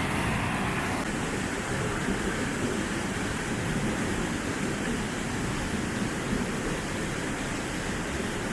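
Small waterfall on a mountain river pouring into a rock pool: a steady rush of falling water.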